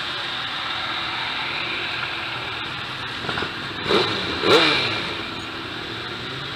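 Motorcycle engines as a line of bikes rides slowly past one after another. One passes close about four seconds in, its engine note loudest and then dropping as it goes by.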